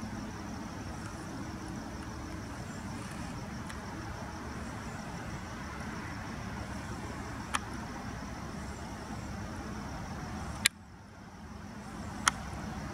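Steady low background rumble and hiss with three sharp clicks. The loudest click, about two-thirds of the way in, is followed by a sudden dip in the background that builds back over a second or so.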